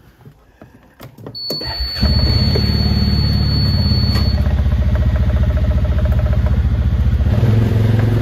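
A vehicle engine is started: after a few clicks it catches about two seconds in and settles into a steady, rhythmic idle that picks up slightly near the end. A thin high steady tone sounds for about three seconds as it starts.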